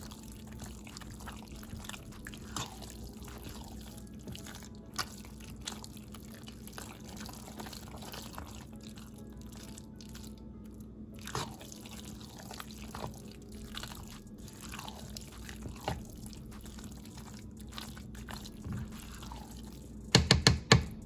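Macaroni in a thick, creamy cheese sauce being stirred in a pot: wet, sticky squelching with a few sharp clicks of the utensil against the pot over a steady low hum. Music starts near the end.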